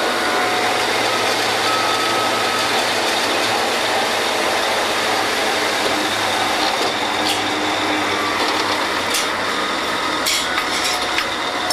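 Drilling rig running as drill pipe is lowered in to make a connection: a loud, steady din of engines and machinery. Several sharp metal clanks come in the second half.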